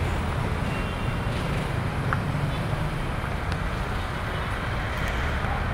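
Steady rumble of heavy city road traffic: cars, jeepneys and motorcycles running in a slow, crowded stream.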